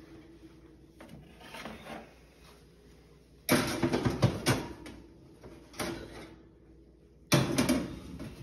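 Oven door and metal baking tray clanking: a loud clatter with a short metallic ring about three and a half seconds in, a smaller knock near six seconds, and another ringing clank near the end.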